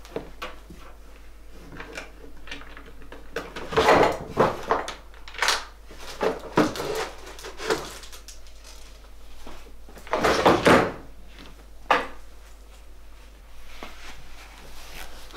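Dresser drawer slid open and shut, with things handled inside it: a series of knocks and clunks, loudest about four seconds in and again about ten seconds in.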